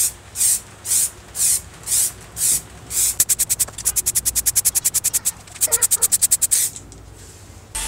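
Aerosol spray paint can hissing in short bursts, about two a second, then in two quick runs of much shorter spurts.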